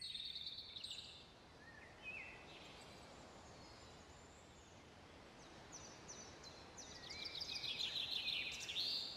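Songbirds singing over a faint steady hiss of outdoor air: a quick burst of chirps at the start, a few scattered calls, then a longer run of rapid trilled chirps that grows louder in the last few seconds.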